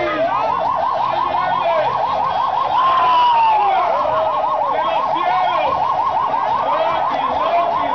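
Sirens sounding together: a fast warbling yelp that repeats several times a second, with a slower wail that rises and falls once about three seconds in.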